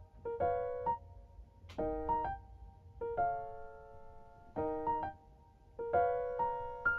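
Background lo-fi piano music: soft keyboard chords and short phrases struck every second or so, each ringing out and fading.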